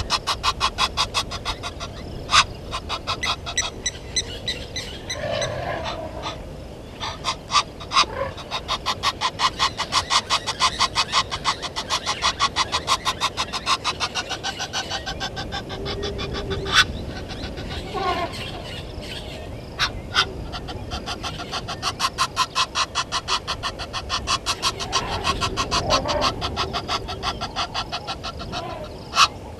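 Animal calls: a fast, steady train of sharp clicking calls, several a second, that fades in and out, with a few lower honking calls now and then.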